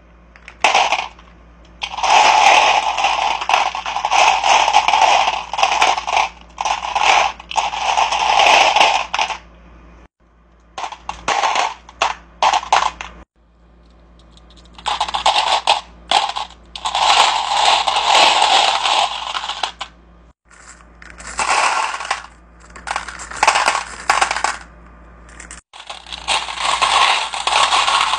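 Polished crystal spheres and tumbled stones clattering and clinking against each other and a glass bowl as a hand stirs through them, in spells of a few seconds with short breaks.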